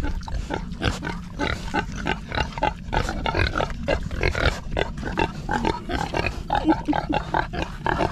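A group of pigs grunting close by, short grunts coming thick and fast, several a second.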